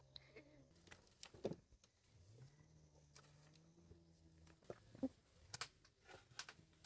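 Near quiet, with a few faint scattered clicks and rustles of a person's footsteps and of her climbing over a low bamboo fence.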